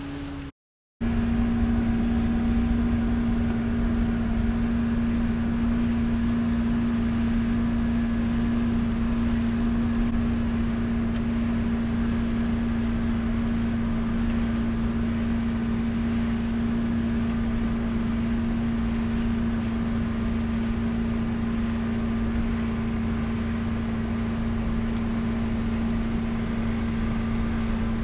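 Boat's outboard motor running at a steady speed with the boat under way: a constant even drone whose pitch does not change, over a low rumble. It cuts in after a brief silent gap about half a second in.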